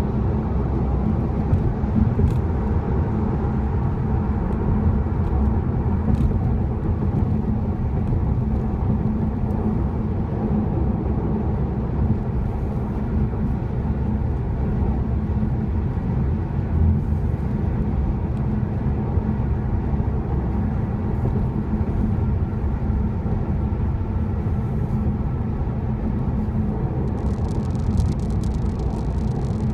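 Steady engine and tyre rumble of a car driving on a highway, heard from inside the cabin. A faint high hiss joins in near the end.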